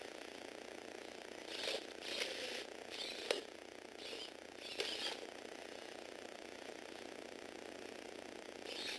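Small plastic Lego Technic parts rattling in several short bursts, with a sharp click about three seconds in; the second half is only a faint steady hiss until one more short rattle at the end.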